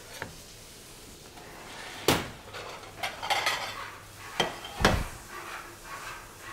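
Kitchen clatter of a large porcelain plate and cutlery on a stainless-steel counter: two sharp knocks, about two seconds in and just before five seconds, with rattling in between.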